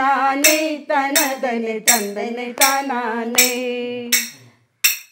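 A voice singing a Chavittu Nadakam song in drawn-out vocables ('thanthanne thanane'), the style used as a lullaby, kept in time by a sharp metallic clink about every 0.7 seconds. The singing fades out about four and a half seconds in, with one last clink just after.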